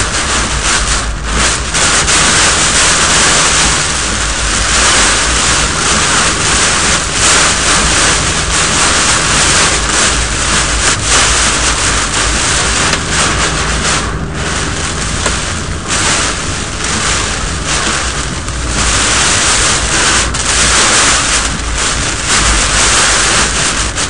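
Heavy rain and strong wind battering a moving car, heard from inside the cabin, with a steady low rumble underneath. The noise rises and falls in gusts.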